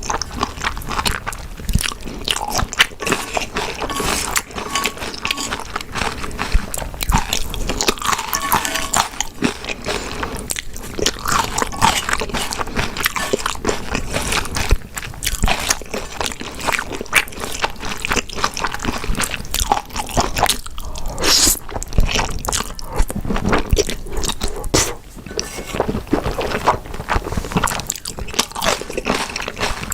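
Close-miked chewing and biting of grilled beef intestines and spicy stir-fried noodles: a dense run of short mouth clicks and smacks.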